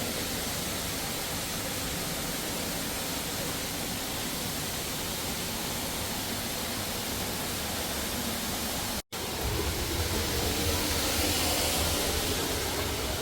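Düden waterfall's falling water rushing steadily, an even noise with no pattern, broken by a split-second gap about nine seconds in.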